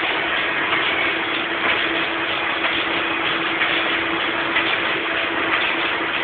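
Plastic bag-making machine running: a steady mechanical clatter with a constant hum.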